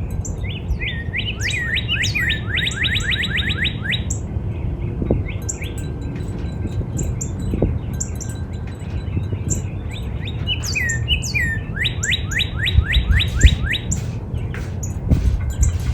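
Northern cardinal singing: two phrases, each a quick run of downward-slurred whistles that starts slowly and speeds up, one near the start and one about two-thirds of the way in. Short high chips sound between the phrases, over a steady low rumble.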